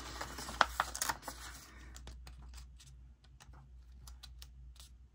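Paper sticker sheets being handled. Paper rustles for about the first two seconds, then scattered small clicks and taps follow as a sticker is peeled from its backing sheet.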